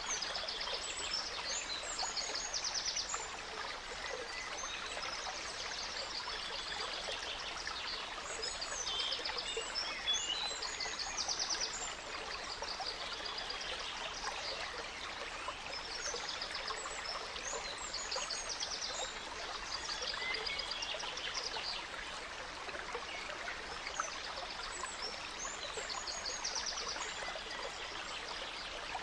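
A gentle stream trickling and babbling steadily, with small songbirds singing repeated phrases of quick high notes over it every few seconds.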